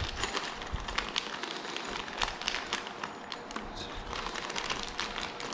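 Small metal assembly screws clicking and rattling against each other as they are picked through and counted out by hand: a run of light, irregular clicks.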